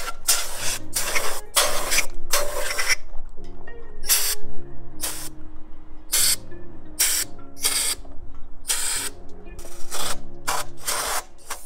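Compressed-air AC flush gun spraying solvent into the passages of a bare engine block, in about fifteen short, uneven bursts. Background music runs underneath.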